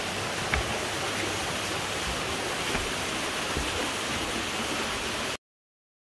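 Steady rushing of a waterfall, with a few soft thumps; it cuts off suddenly near the end.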